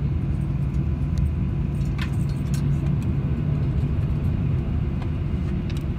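Steady low rumble of a Boeing 737-900's cabin on the ground after landing, engines idling as the airliner taxis, with a few light clicks.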